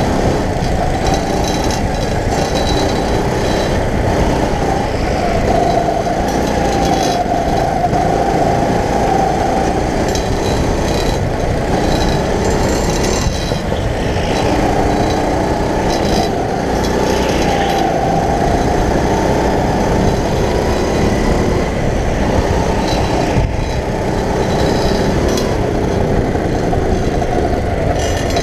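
Go-kart engine running under throttle, heard close up from the driver's seat, its pitch rising and falling over and over as the kart speeds up on the straights and slows for corners.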